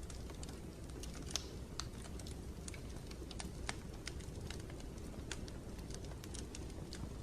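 Irregular light clicks, a few a second, over a steady low rumbling noise.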